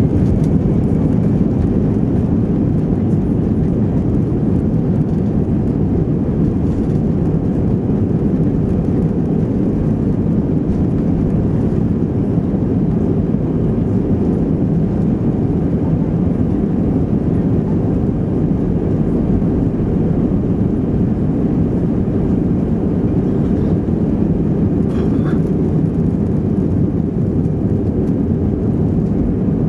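Airbus A320 engines at takeoff thrust during the takeoff roll, a steady low roar mixed with runway rumble, heard from inside the cabin over the wing.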